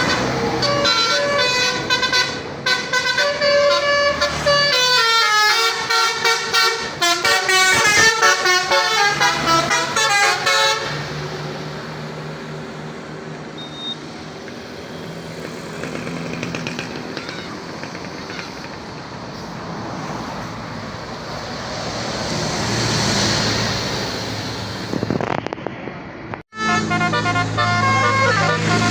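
Bus basuri 'telolet' musical horn playing a quick multi-note melody for about ten seconds, then steady engine and road noise of passing vehicles, and the horn melody starts again after a brief break near the end.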